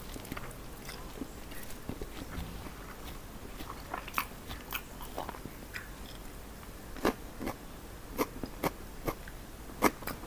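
A person chewing a mouthful of fried noodles close to the microphone, with many small wet mouth clicks that come more often and louder in the second half.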